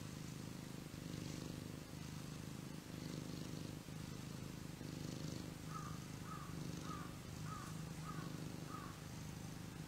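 Domestic cat purring, a low continuous rumble that swells and dips with each breath about once a second. Six faint short high chirps come in quick succession, about half a second apart, in the second half.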